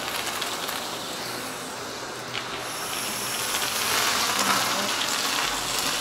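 A wind-like rush of air through a vacuum floor nozzle, hose and pipe as foam crumbs are sucked off a concrete floor. The vacuum itself, a construction vacuum run as a trial central-vacuum system, is barely heard over the air in the pipe.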